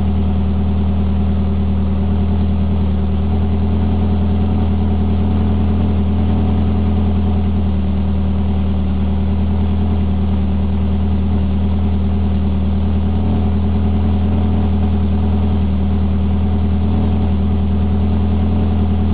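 Peugeot 205 GTI four-cylinder petrol engine idling steadily through a decat pipe and an IRESA aftermarket silencer, a loud, even exhaust note with no revs.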